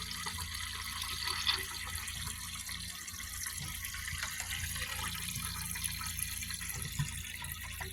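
Water running steadily into a toilet tank from a homemade supply line, filling the tank.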